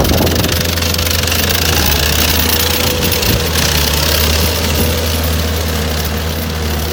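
Diesel engine of a Cat 277C skid steer running steadily, with a constant low hum.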